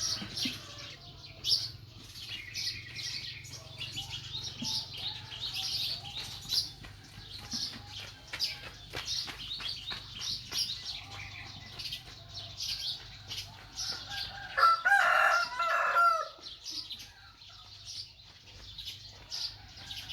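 Animal calls: rapid short high chirps and squeaks throughout, with one louder, longer call lasting about a second and a half near three quarters of the way through.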